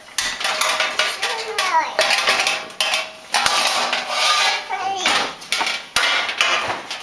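Dishes and cutlery clattering and clinking as they are taken out of a dishwasher, in a run of repeated rattles and knocks with brief ringing.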